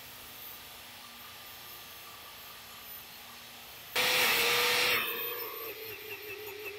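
Angle grinder with a 6-inch cutoff wheel cutting into hardened cast iron: a faint steady hum at first, then about four seconds in a sudden loud second of grinding, after which the motor's whine carries on with lighter grinding.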